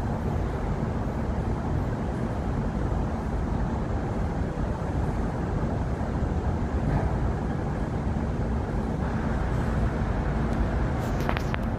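Steady background rumble at an elevated railway station, with a constant low hum. A couple of brief high squeals come near the end.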